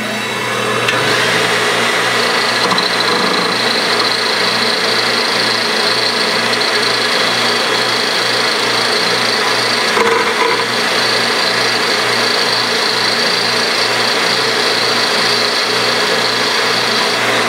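An 8-inch bench grinder and a cordless drill run together while a C2 tungsten carbide rod, spun in the drill, is ground to a point against the wheel. Motor pitch rises in the first second, then a steady grinding hiss sits over the pulsing motor hum.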